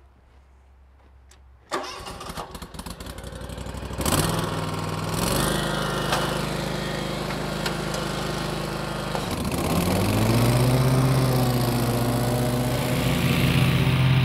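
Kawasaki engine of a Wright Stander X stand-on mower being cranked by its starter and catching about four seconds in, then running. Its speed steps up shortly after it catches, dips briefly about nine seconds in, and climbs back to a steady, higher run.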